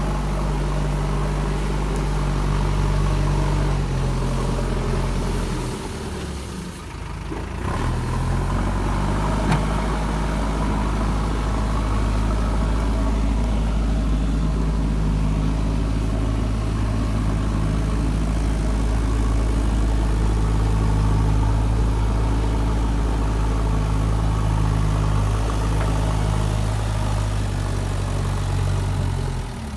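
JCB 3DX backhoe loader's diesel engine running steadily, its pitch stepping up and down a few times, with a brief drop in level about six seconds in.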